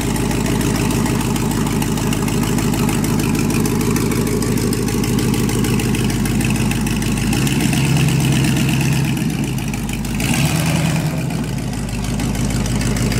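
Old pickup truck's engine running at low speed while the truck is driven, rising in level a little past halfway and changing abruptly about ten seconds in.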